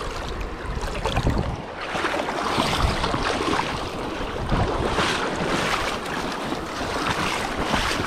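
Fast-flowing creek water rushing and splashing around an angler's waders, with wind buffeting the microphone in gusts.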